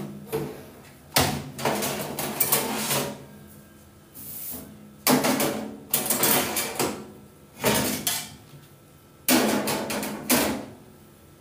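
Metal wire oven racks being pulled out of and slid back into an oven, clattering and scraping against the oven's metal runners in about four bursts.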